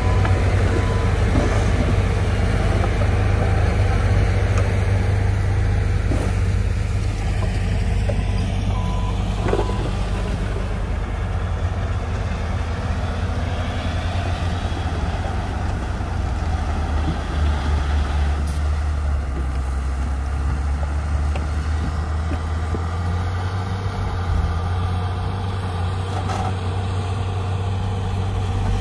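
Heavy diesel earthmoving machinery running steadily, a deep engine drone that holds through the whole stretch.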